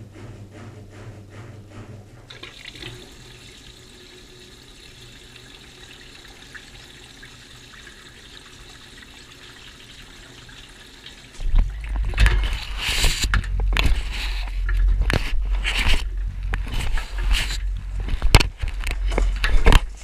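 Miele front-loading washing machine filling: a steady hiss of water running into the drum, then about eleven seconds in the drum starts turning and the wet laundry tumbles, with a loud low rumble and many irregular knocks and splashes.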